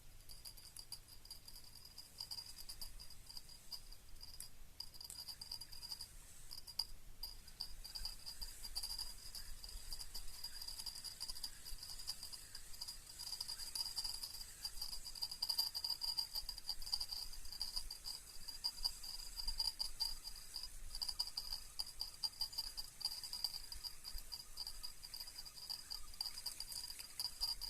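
An insect trilling continuously: a steady, fast-pulsing high buzz that grows a little louder partway through.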